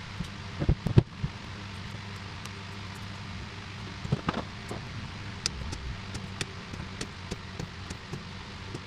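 Handling sounds from battery cables and a plastic cell-holder battery pack on a tabletop: scattered knocks and clicks, the loudest about a second in and a couple more around four seconds in, then light ticking. A steady low hum runs underneath.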